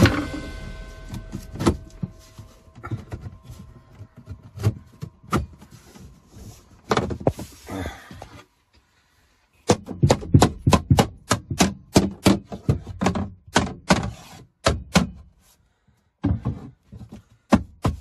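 Sharp knocks and thuds on wood as a wooden strip is knocked into place in a wooden cabinet frame. They come scattered at first, then in a fast run after a short pause about halfway through.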